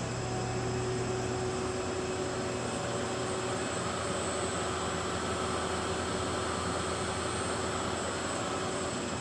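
Microcut Maxicut VMC1600F CNC vertical machining center running under power: a steady mechanical hum with a low drone, a mid tone and a thin high whine, unchanging throughout.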